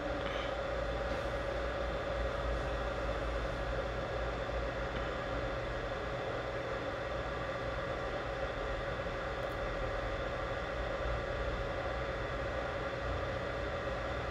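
BGA rework station's hot-air blower and cooling fans running steadily during reflow of a GPU, a constant whir with a steady mid-pitched whine.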